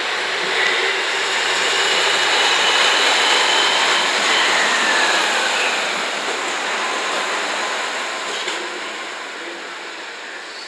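JR West KiHa 189 series diesel multiple unit running past along the platform: diesel engine noise and wheels on the rails, with a brief thin squeal a couple of seconds in. The sound fades as the train draws away.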